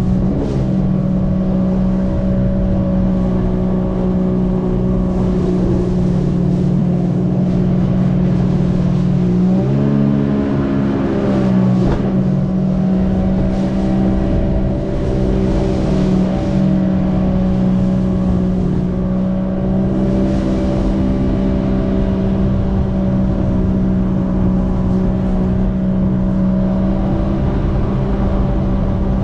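Jet ski engine running steadily at speed, its pitch rising and wavering briefly about ten seconds in before settling again, over the rushing hiss of water and spray along the hull.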